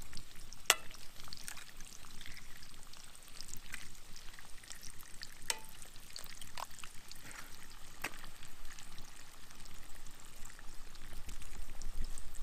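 Eggs frying in cast iron skillets over a campfire: a steady sizzle with crackling spits, and a few sharp pops, the loudest about a second in.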